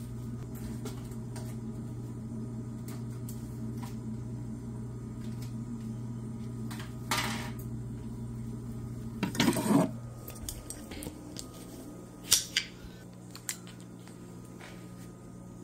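Takeout food containers being handled on a countertop: scattered light clinks and knocks, with two longer rustles about seven and nine and a half seconds in, over a steady low hum.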